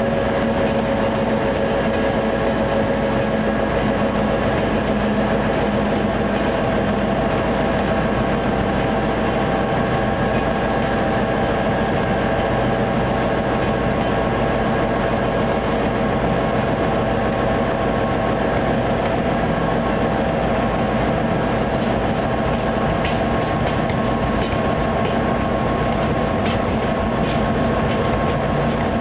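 EMD SD50 diesel locomotive with its train running steadily on the track: a constant engine drone with several steady tones over it, and a few light clicks near the end.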